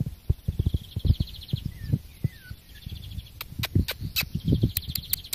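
Small birds chirping, with several buzzy rapid trills and a couple of short falling chirps. Over them come many dull low thumps, the loudest sounds, and from about halfway in a run of sharp clicks.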